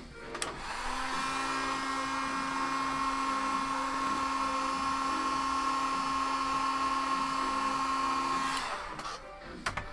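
Heat gun blowing hot air, a steady whirring with a constant whine, switched on about half a second in and cut off shortly before the end.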